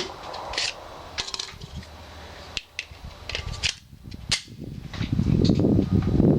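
Scattered gunshots at a shooting range: one sharp crack right at the start, then fainter cracks and clicks spread a second or so apart. From about five seconds in, a loud rustling rumble takes over.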